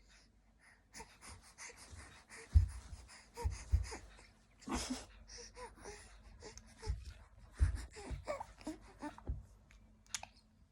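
Baby giggling and laughing in short breathy bursts, broken up by several dull low thumps, the loudest about two and a half seconds in.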